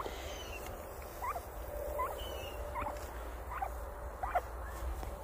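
Domestic turkey hen giving soft, high chirps: six or seven short rising notes, one every half-second to a second.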